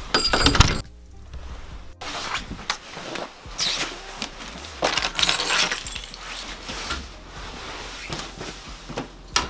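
Background music, with brief clinks and knocks of things being handled.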